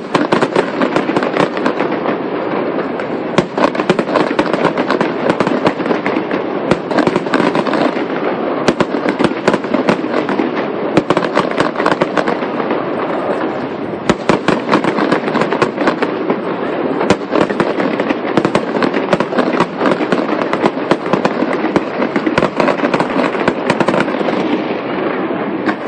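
Fireworks display going off: a dense, continuous crackle with many sharp pops and bangs, starting suddenly.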